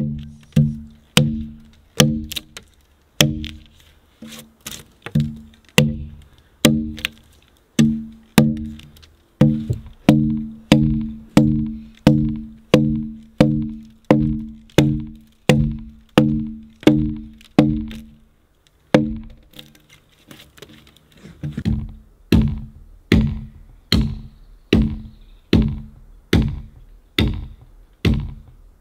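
Steady axe strikes chopping notches into a peeled log, a little under two a second. Through the first two-thirds each blow is a knock with a short pitched ring from the log; after that the ring drops out and the blows are duller thuds.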